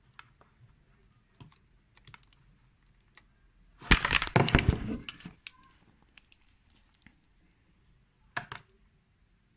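Handling clatter from working in an open desktop computer: scattered light clicks, a dense burst of clicking and rattling about four seconds in lasting over a second, and one more sharp click near the end.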